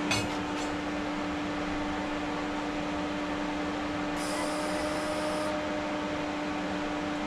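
TIG welding set humming steadily during tack welding, with about a second of high-pitched arc hiss starting about four seconds in.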